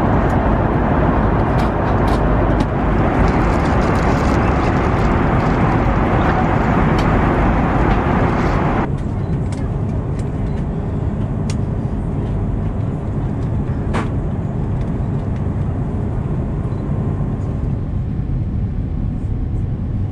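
Steady cabin noise inside an Airbus A330 airliner in flight: the constant rush of airflow and engines heard from a window seat. About nine seconds in, it drops abruptly to a lower, duller rumble, with a faint click a few seconds later.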